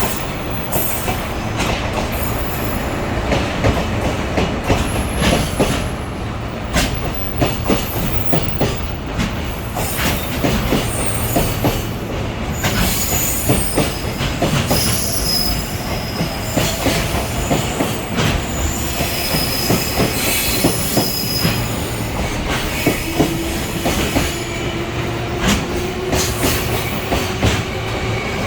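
Freight train hauled by a DD55 diesel locomotive rolling slowly into the station, wheels squealing in short high tones and clacking irregularly over rail joints and points.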